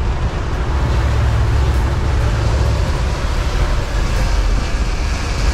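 Sportfishing boat's engines running with a steady low rumble, mixed with wind on the microphone and the rush of churned water along the hull.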